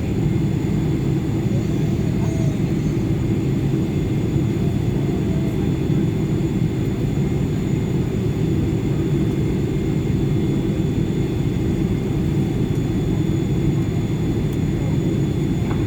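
Steady low rumble inside an airliner cabin after landing, the engines and cabin air running evenly with no change in level.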